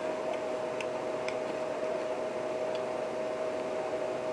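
Steady mechanical hum with a constant mid-pitched whine, with a few faint ticks in the first three seconds.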